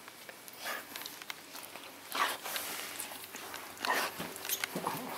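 Siberian husky sniffing and huffing close to the microphone, a few short breathy puffs about a second and a half apart.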